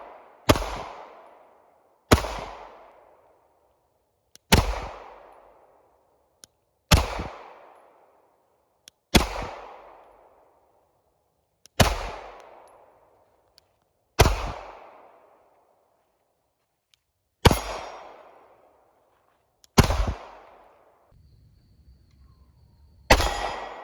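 A 9mm Glock 19X pistol fired unsuppressed: about ten single shots at a slow, steady pace, roughly one every two to three seconds. Each shot is a sharp crack followed by a long echo that dies away.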